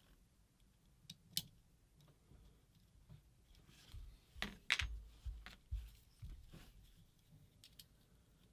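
Scattered small clicks and light knocks of a paintball marker's parts being handled and fitted back together, with a few dull thumps and the sharpest click about halfway through.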